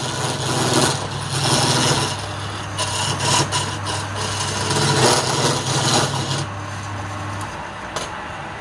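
Wood lathe running with a steady motor hum while a hand-held turning chisel cuts into the end face of a spinning palm-wood block, the cutting noise coming in repeated surges. The cutting stops about six and a half seconds in, the motor hum cuts out about a second later, and a single click follows.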